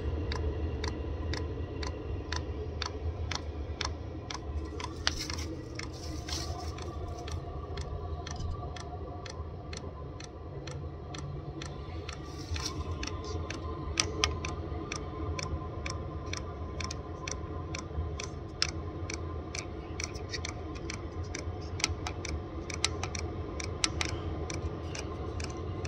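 Diesel heater's fuel dosing pump ticking in a steady rapid rhythm as it pumps fuel toward the burner, over the steady hum of the heater's fan.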